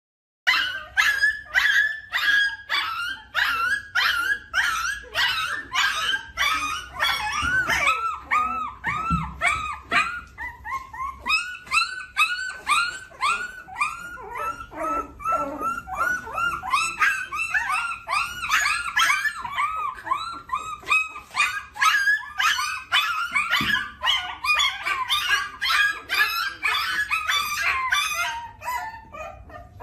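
A dog yipping over and over without a break, high-pitched yips at about three a second.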